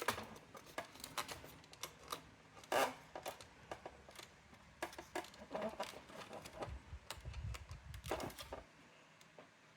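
Irregular clicks and knocks of plastic and metal parts of a Brother AX-425 electronic typewriter being handled during disassembly, with a louder knock about three seconds in and a low rumble of something sliding on the work surface shortly before the sounds stop near the end.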